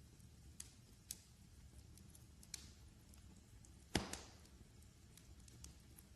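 Wood fire crackling in a fireplace: scattered sharp crackles over a low, steady rumble of flames, with one louder pop about four seconds in.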